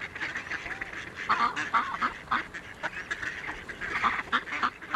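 A flock of mallard ducks quacking in short calls, again and again.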